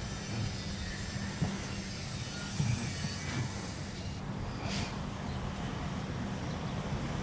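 Street ambience: a steady low rumble of traffic, with a quick run of short, high-pitched chirps, two or three a second, starting about four seconds in.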